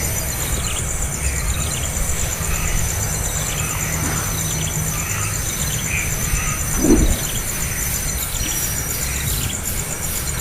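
Nestlings squealing and chirping in short, scattered begging calls. A single low thump about seven seconds in.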